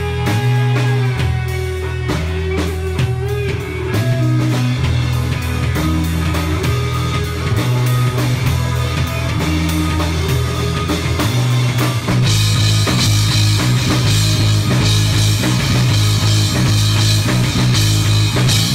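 Live rock band playing loud, with electric guitar, bass and drum kit. About twelve seconds in, cymbals wash in and the band gets fuller and louder.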